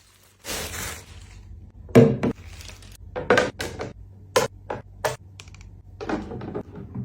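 Storage containers being handled and set down in a refrigerator: a short rustle, then a string of uneven knocks and clicks as they are put in place.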